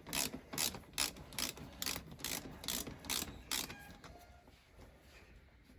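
Ratchet wrench clicking in quick regular back-strokes, about two to three a second, as it undoes an exhaust can mounting bolt. The clicking stops a little over halfway through, leaving faint handling noises.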